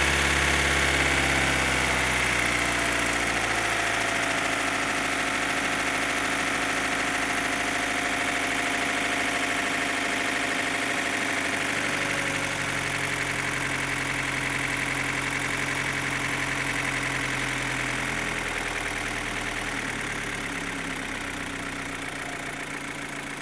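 Opel Astra H's Z16XEP 1.6-litre four-cylinder petrol engine idling with a loud, fast ticking that sounds like the valve gear. The ticking disappears when fuel to cylinders 3 and 4 is cut, but new rocker arms on those cylinders did not cure it; the owner suspects the non-original camshafts. It grows a little fainter over the last few seconds.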